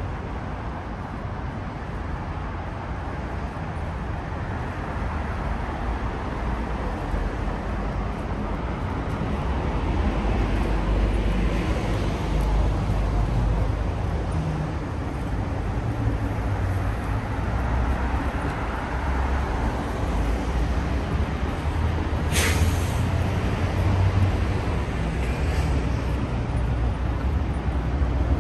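Street traffic: vehicle engines running and passing, growing louder about a third of the way in. A short, sharp hiss about three-quarters of the way through.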